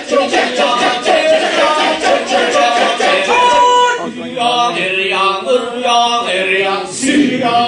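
A large male chorus chanting in Balinese kecak style: a sung melodic line over a fast, clipped rhythmic chant, with the rhythmic part strongest in the first few seconds.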